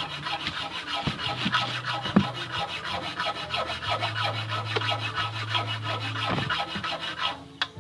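Fast, even scraping strokes of a hand tool working on a metal part, cutting off suddenly near the end.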